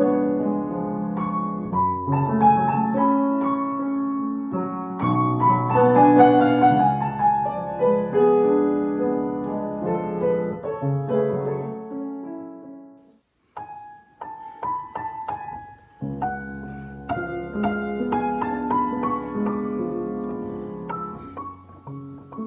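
Piano played slowly by hand, held chords under a melody. About thirteen seconds in the playing fades almost to nothing, a few soft single notes follow, and then the chords and melody resume.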